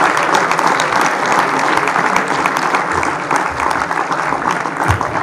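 Audience applauding, with dense clapping that eases off gradually toward the end.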